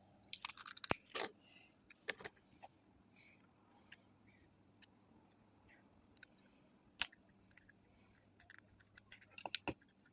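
Small metal clicks and clinks of a chrome Zippo lighter being handled and taken apart. The sharp ticks come in clusters, busiest in the first second or so and again near the end, with sparse single ticks between.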